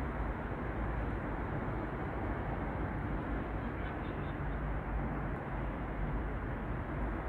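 Steady low rumble with a hiss over it, even throughout and without distinct events.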